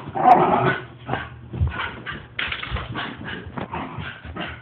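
Miniature schnauzer making excited whimpering, grunting noises, the loudest in the first second, followed by a quick series of short, noisy sounds that fade near the end.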